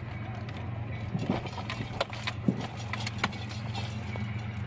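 Steady low rumble heard from inside a car, broken by a few sharp clicks and taps between about one and three seconds in.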